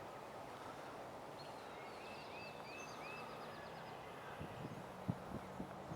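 Songbirds chirping faintly: a quick run of short, repeated high notes in the first half, over a faint steady low hum, with a few soft knocks near the end.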